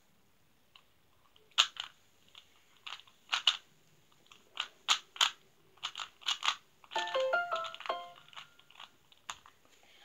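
Rubik's cube being turned by hand: irregular plastic clicks and clacks as the layers snap round. About seven seconds in, a short stepped electronic tune plays for a second or so among the clicks.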